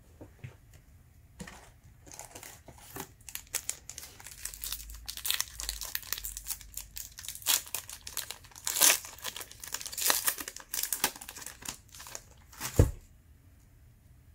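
Plastic wrapper of a Panini Hoops trading-card pack being torn open and crinkled by hand, a long run of crackling rustles. A single sharp thump near the end is the loudest sound.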